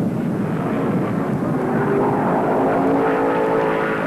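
Modified stock car racing engines running at speed on the track. About halfway through, one engine's note comes through louder and clearer, holding a steady pitch as a car passes close.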